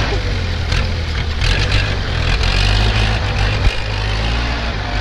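Diesel engines of a Kubota tractor and a six-wheel dump truck running steadily under load while the tractor works to free the truck from the mud. There is a single sharp knock about three and a half seconds in.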